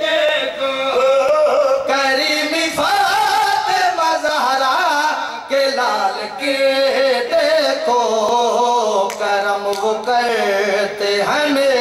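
A man's voice chanting a line of a devotional poem in a drawn-out, wavering melody, the pitch sliding up and down over long held notes.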